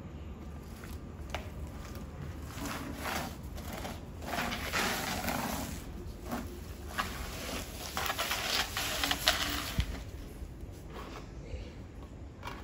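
A flower pot and its bushy plant dragged in short pulls across concrete, scraping and rustling in a run of bursts over several seconds.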